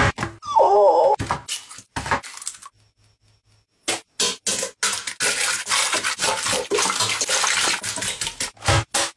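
Raw eggs beaten fast with a utensil in a stainless-steel pot: rapid clattering and scraping against the pot's sides with a wet slosh, starting about four seconds in. Before that come a few sharp knocks and cracks as eggs are broken.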